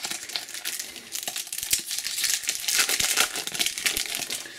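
Shiny foil wrapper of a Panini Adrenalyn XL booster pack crinkling as it is handled and torn open, a dense crackly rustle with many small clicks.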